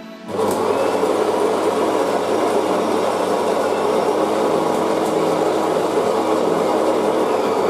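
Saeco Primea Touch Plus bean-to-cup coffee machine running loudly and steadily, a dense mechanical whirr that starts abruptly about a third of a second in.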